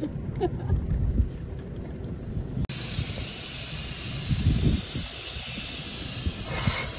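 Wind rumbling on the microphone, then about two and a half seconds in a steady, loud hiss starts suddenly: air being let out of a car tyre's valve, lowering the tyre pressure for traction on sand.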